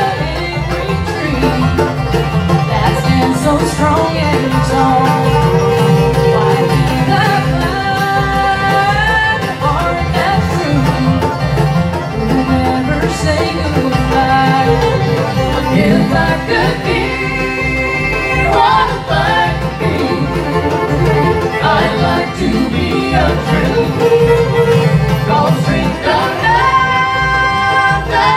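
Bluegrass band playing live: banjo rolls, fiddle, acoustic guitar, mandolin and resonator guitar over an upright bass keeping a steady beat, with sliding notes from the lead instruments.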